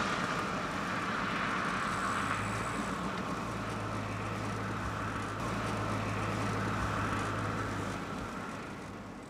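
Steady road noise from a vehicle moving at speed: an even rush of tyres and wind with a low steady hum, fading out near the end.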